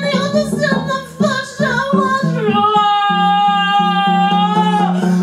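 Wordless female voice improvising, gliding between pitches, then holding one long high note from about halfway through. Under it, a double bass plays a low note repeated in an even pulse.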